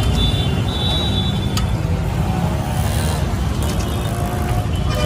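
Busy road traffic: a steady low rumble of passing motorbikes, scooters and auto-rickshaws, with a few sharp clicks and short high tones over it.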